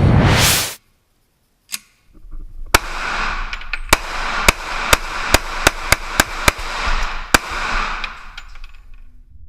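A rising whoosh effect, then a string of about ten pistol shots fired in fairly quick succession over a steady hiss.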